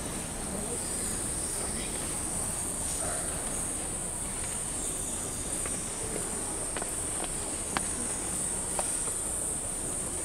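Steady concert-hall room noise with a constant high-pitched hiss, and a few light knocks and taps in the second half as barefoot children step onto metal choir risers.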